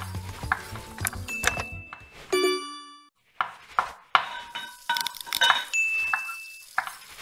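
Channel logo sting built from kitchen sound effects over music: utensils clinking against dishes and pans, with a bell-like ding about two seconds in and a brief silence just after.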